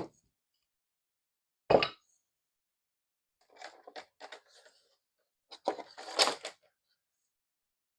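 Plastic slot car track pieces being handled and knocked together: a sharp knock at the start, another just under two seconds in, then two bursts of clattering clicks around four and six seconds.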